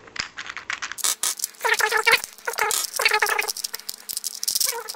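Plastic Rubik's Cube pieces clicking and rattling rapidly as the cube is pried apart, played back sped up. Bursts of high-pitched, squeaky voice-like sound run through it.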